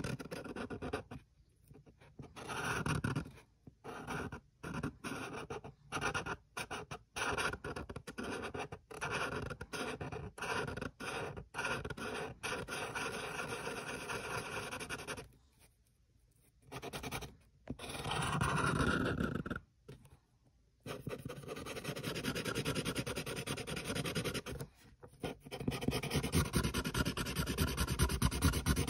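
Black Sharpie permanent marker scribbling on paper: quick, scratchy strokes in short bursts with brief pauses, as an area is filled in with ink.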